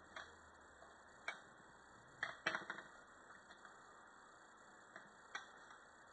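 Scattered light clicks and taps of small paintball-regulator parts being handled: a few single ticks, then a quick cluster about two and a half seconds in, and two more near the end.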